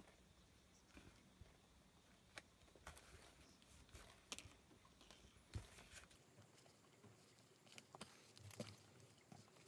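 Faint scattered ticks and rustles of leather being hand-stitched: a needle and thread drawn through a leather strap.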